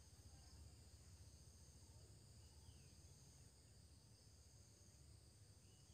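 Near silence: faint steady insect chirring, with two faint, short falling bird chirps, one midway and one near the end.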